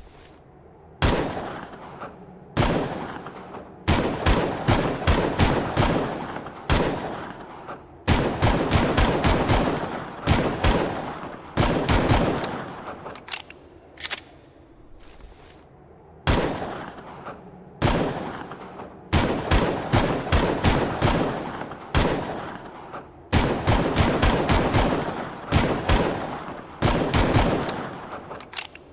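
Longslide pistol sound effect firing: single shots, along with quick strings of rapid shots, each with a ringing, decaying tail.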